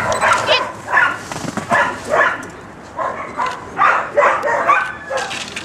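A dog barking repeatedly, short sharp barks at about two a second.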